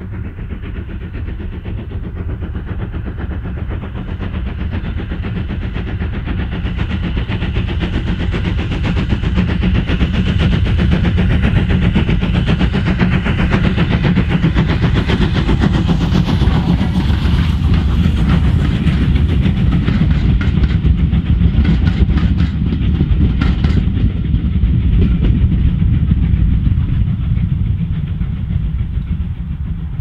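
LSWR T9 4-4-0 steam locomotive No. 30120 working a passenger train past at speed: its exhaust beats grow louder as it approaches and passes close about halfway, then the coaches clatter over the rail joints and the sound begins to fade.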